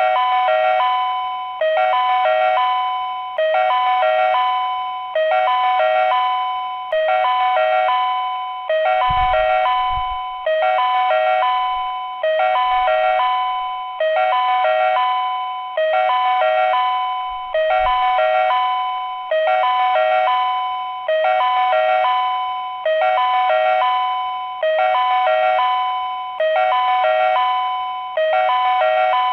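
Railway platform train-approach warning chime: a two-note electronic chime pattern repeating about every 1.7 seconds, each repeat starting loud and fading, signalling that a train is approaching.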